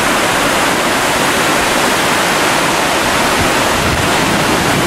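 Glacial meltwater river rushing out from under Cox Glacier: a loud, steady rush of water.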